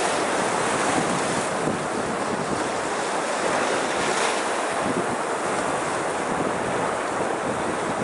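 Small sea waves washing in and breaking around shoreline rocks, a continuous surging wash with no single crash standing out. Wind buffets the microphone.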